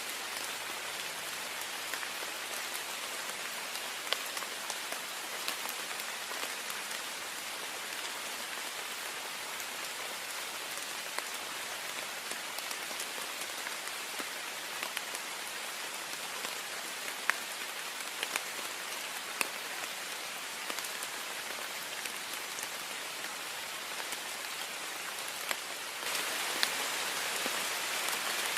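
Heavy rain falling on a window pane: a steady hiss with scattered sharp drop ticks, getting louder near the end.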